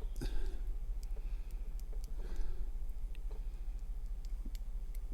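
Scattered light metal clicks as the internals of an opened Ingersoll 10-lever padlock are handled: levers and sprung sidebar moving. A steady low hum runs underneath.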